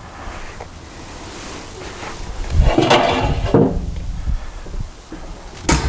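Metal rattling and scraping from handling the racks and door of a steel cabinet smoker, loudest a little before the middle, then a single sharp click near the end.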